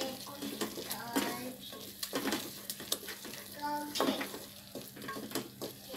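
Wooden spoon stirring and scraping thick masala paste frying in oil in an aluminium pot. Irregular scrapes and knocks against the pot sound over a faint sizzle.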